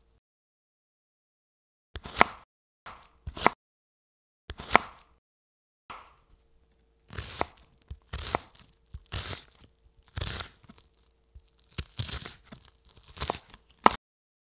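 Chef's knife cutting through a raw onion on a bamboo cutting board: three separate cuts, then a run of crunching cuts about one a second as the onion is diced, each cut ending with a sharp tap of the blade on the board.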